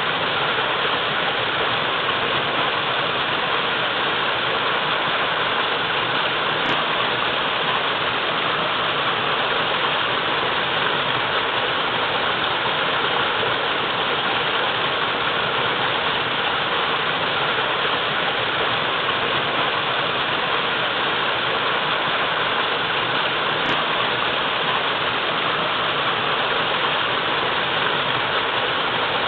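Waterfall: a steady, continuous rush of falling and splashing water.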